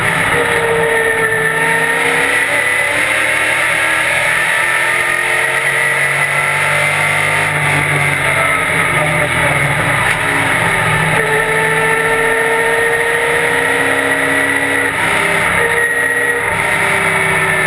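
Late model stock car's V8 engine heard loud from inside the cockpit at racing speed. Its pitch slowly rises and falls with the throttle, dipping near the end before climbing again.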